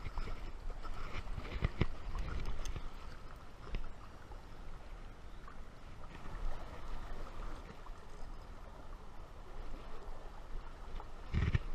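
Steady rush of a flowing river, with splashes and knocks in the first few seconds as a hooked trout thrashes at the surface and is brought into a landing net, and more handling knocks near the end.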